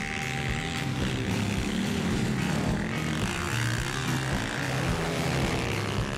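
Single-cylinder four-stroke Honda CRF dirt bike engine working hard through a corner, its pitch rising and falling with throttle.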